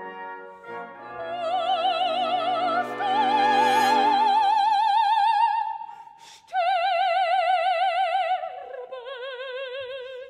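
Operatic soprano singing long held notes with wide vibrato: the phrase climbs to a sustained high note, breaks off briefly after about six seconds, resumes, and falls to a lower held note near the end.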